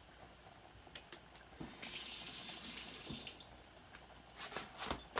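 Kitchen tap running for about two seconds, starting about a second and a half in, followed by a few light knocks near the end.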